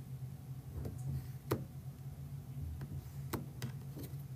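Tarot cards and a card deck being set down on a wooden table: about six light, sharp taps and clicks at irregular intervals, over a faint steady low hum.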